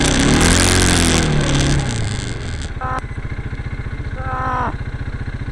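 Quad ATV engine revving while riding, then dropping to a steady, evenly pulsing idle about two and a half seconds in as the quad stops. A short human voice sounds briefly near the end.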